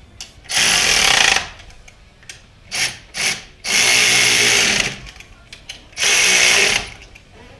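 Cordless electric ratchet running in three bursts of about a second each, with two short blips in between, driving in the mounting bolts of a new alternator.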